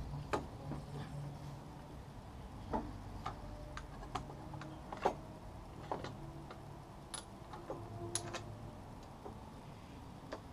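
Scattered light clicks and taps, about a dozen at irregular intervals, from hand work on the motorcycle's front fork and brake caliper area.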